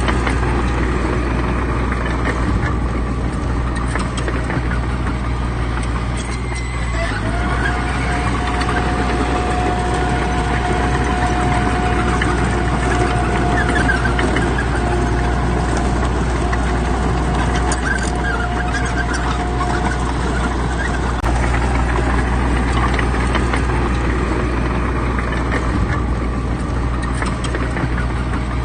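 Heavy diesel engines of earth-moving machinery, bulldozers and dump trucks, running steadily with a deep drone. A steady high whine joins for about thirteen seconds in the middle.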